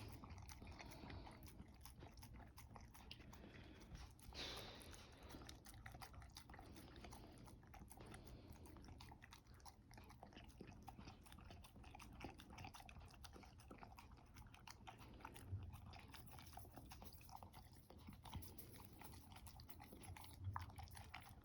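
A dog eating: faint, irregular crunching and chewing, many small clicks, with a brief louder rustle about four seconds in.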